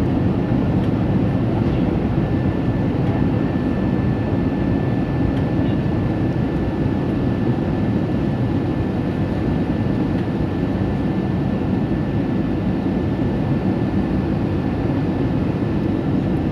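Airbus A320 in flight: a steady roar of engine and airflow noise with a faint high whine held throughout.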